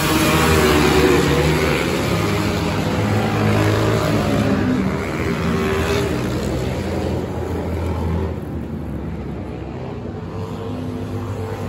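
Dirt bike engines racing past on a dirt track, their pitch rising and falling as the riders work the throttle. They are loudest about a second in and grow quieter after about eight seconds as the bikes pull away.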